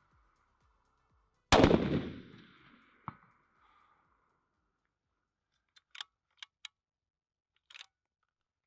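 A 6.5 Creedmoor bolt-action hunting rifle fires a single loud shot about a second and a half in, its report trailing off over about two seconds. Roughly a second and a half later comes a short sharp crack, fitting the bullet striking a steel target at 400 yards. Near the end come a few light metallic clicks, fitting the bolt being cycled.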